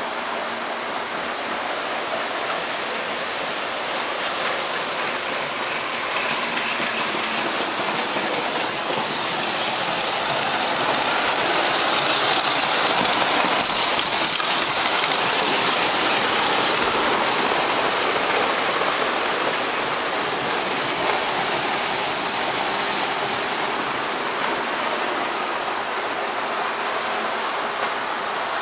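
O-gauge model train running on the layout's track, a steady rushing rumble of wheels on rail. It swells as the train passes close, loudest about halfway through, then eases off again.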